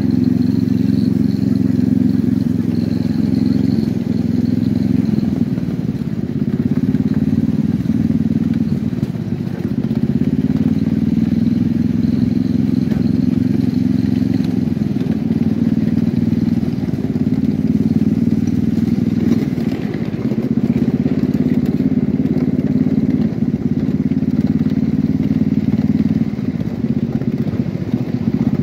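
Small engine running steadily, swelling and easing every few seconds, heard from aboard a ride-on miniature train.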